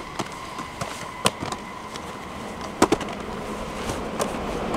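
Rugby balls smacking into players' hands as they are caught and passed: scattered sharp slaps, a second or so apart. A low rushing noise builds toward the end.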